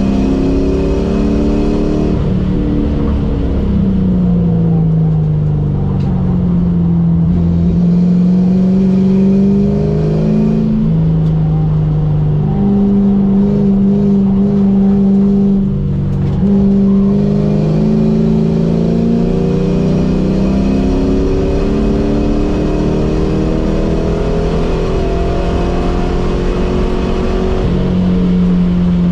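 Ford Mustang SN95 engine heard from inside the cabin under hard track driving, revving up and dropping in pitch again and again as it accelerates, shifts and slows for corners, holding a steady pitch for a few seconds near the middle.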